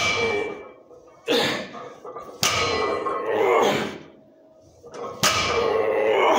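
A barbell loaded with 405 lb of plates being deadlifted for reps. The plates knock on the floor as the bar touches down, with three sharp hits, and heavy breaths or grunts of effort follow each one.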